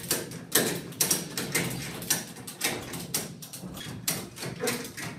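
Ratchet strap being cranked to hoist a load, its pawl clicking in a steady series of about two clicks a second.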